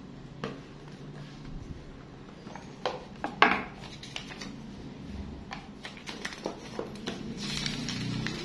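Cardboard smartphone box being opened by hand: small clicks and scrapes of the box, with the loudest scrape about three and a half seconds in as the lid comes off, then paper rustling near the end as a paper insert is pulled out.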